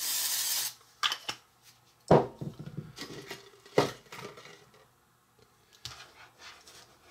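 A short hiss, then a small metal baking pan and utensils clattering and clinking on a work surface as dough is set onto the pan. There are two sharper knocks, about two and about four seconds in, with lighter clicks between them.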